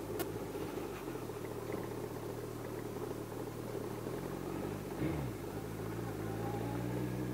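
Kawasaki GTR1400's inline-four engine running at low revs as the motorcycle rides over a dirt track, a steady note that dips briefly in pitch about five seconds in and then settles slightly higher.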